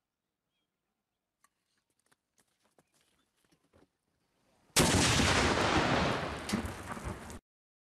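A live hand grenade detonates with one sudden loud blast about two-thirds of the way in. Dense noise follows and slowly fades for about two and a half seconds, then cuts off abruptly. Before the blast there are only a few faint knocks.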